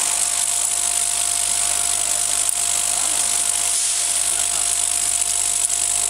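Vibratory cap-feeding bowl of a GZ-50 vial crimping machine running, with aluminium vial caps rattling steadily along its spiral track. Underneath is a steady low electric hum and a thin steady tone.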